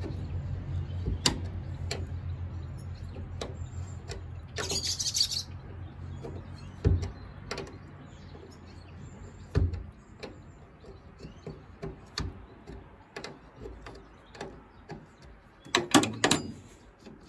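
Open-ended steel spanner working a nut on a Land Rover Series III windscreen frame: scattered light metallic clicks and taps, with a louder clatter of spanners on the steel bulkhead about sixteen seconds in. A low steady hum sits underneath and fades out by about ten seconds.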